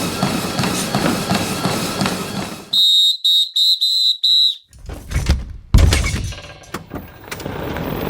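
A sports whistle blown in about five short, sharp blasts of one steady high pitch, after a noisy stretch of activity, followed by several heavy thuds, the loudest a little past the middle.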